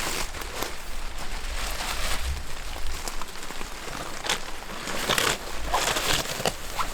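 Rain falling, with scattered sharp taps and crinkling rustles.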